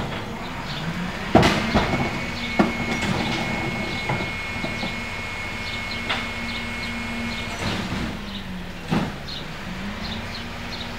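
Rear-loader garbage truck's engine speeding up to drive the hydraulic packer, with a steady high hydraulic whine for about five seconds before the engine drops back. Loud bangs of plastic carts knocking against the hopper, the loudest about a second and a half in and another near the end.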